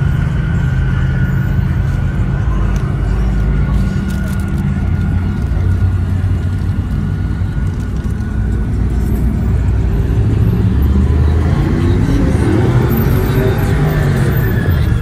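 Low steady rumble of a vehicle's engine and tyres creeping slowly, heard from inside the cab with the window down. Near the end an engine note rises and falls.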